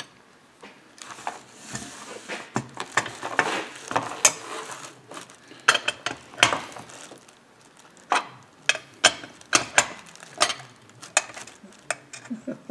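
Metal tools and parts clinking and tapping against a Farmertec 372 chainsaw crankcase as the crankshaft is fitted: a string of irregular sharp clicks and knocks, with some rustling in the first few seconds.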